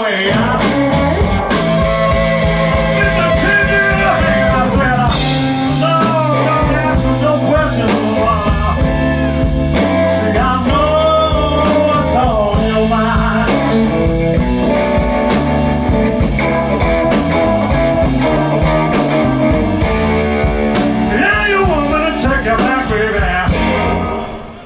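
Live electric blues band playing: electric guitar, electric bass and drum kit, with lead lines of bent notes over a steady bass and drum groove. The volume drops briefly near the end.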